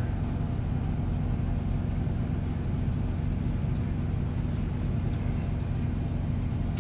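Idling truck engine: a steady low drone heard from inside the sleeper cab.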